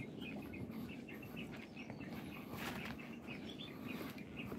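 Rapid high chirping, several short notes a second, over footsteps on a wooden boardwalk and a steady low background rumble.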